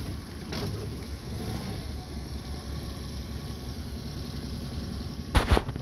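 Small outboard motor on a jon boat running steadily at low speed, with wind on the microphone. Two sharp knocks come about five seconds in.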